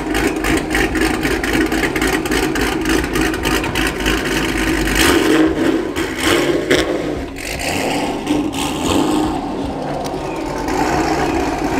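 Supercharged fifth-generation Chevrolet Camaro with a Corsa exhaust, idling in an even pulse, then pulling away about five seconds in and driving off.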